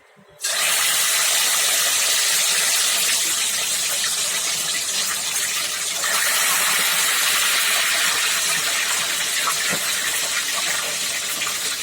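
Pieces of fish sizzling loudly as they deep-fry in hot oil, the hiss starting suddenly about half a second in as the fish goes into the oil. The sizzle dips slightly near six seconds in, then comes back up.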